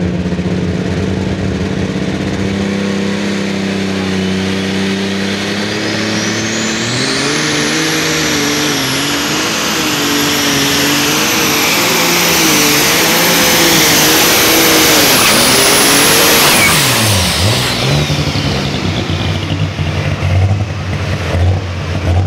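Pulling tractor's turbocharged engine making a pull: it idles, then revs up hard and runs wavering under load for about ten seconds before backing off. A high turbo whistle climbs as the engine comes up, holds through the pull and falls away as the throttle comes off.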